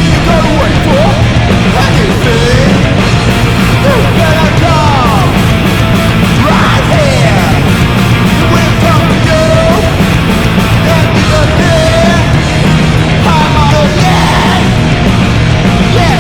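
Loud, heavy punk-style rock music with distorted guitars and a steady beat.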